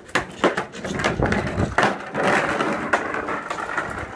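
Skateboard wheels rolling over rough concrete and cracked asphalt, a steady gritty rolling noise, with several sharp clacks of the board and wheels hitting the ground in the first couple of seconds.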